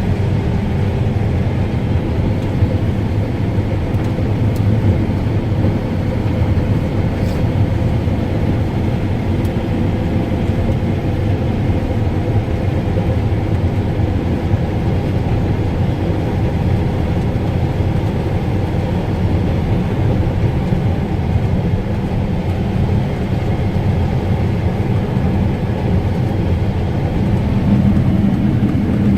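Combine harvester heard from inside its cab: a steady, loud drone of engine and threshing machinery with a faint steady hum over it.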